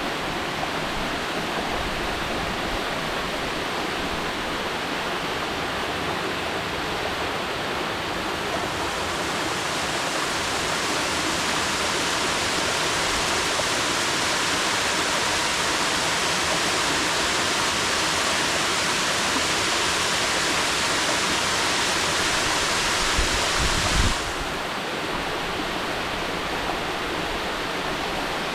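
Mountain waterfall rushing steadily. About nine seconds in the rush turns brighter and a little louder, and at about 24 seconds it drops back suddenly to the softer sound, just after a brief low thud.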